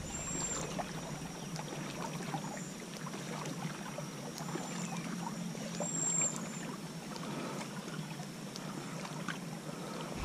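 Water lapping and trickling against the hull of a drifting kayak, with small ticks and a few short high whistles over it.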